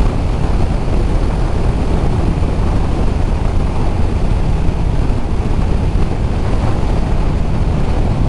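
Steady wind rush on the microphone of a motorcycle riding at speed, with engine and road noise underneath.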